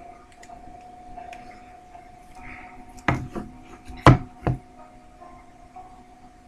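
Four sharp, close knocks from hands handling things, the loudest a little after four seconds in, over a faint steady hum.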